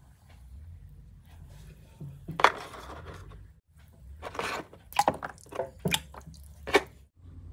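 Small plastic toy figures and cards being handled against a cardboard box: a handful of sharp knocks and short scrapes, the loudest about two and a half seconds in and near the end.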